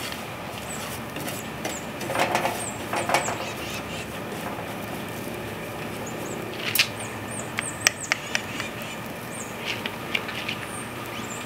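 Wooden spoon stirring and scraping frying onions and ground flaxseed around the inside of a clay pot, with scattered knocks of the spoon against the pot, sharper in the second half. Small birds chirp high in the background.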